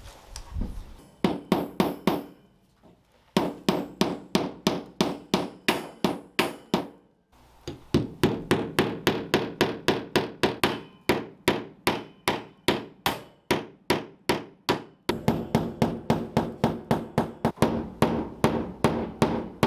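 Hammer driving nail staples through a cattle-panel gate's wire into a particle-board wall, to hang the gate so it still swivels. Several runs of quick, even strikes, about three a second, with short pauses between them.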